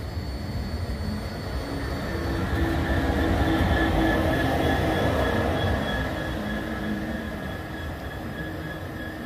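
GB Railfreight Class 66 diesel-electric locomotive, with its two-stroke V12 engine, passing close by: engine and wheel noise swell to a peak about four seconds in, then fade. Thin, steady high-pitched tones run over the rumble.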